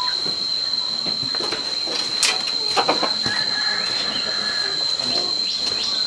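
A steady, high-pitched insect drone holding one unbroken tone. A few scattered clicks and knocks sound over it, the sharpest about two seconds in.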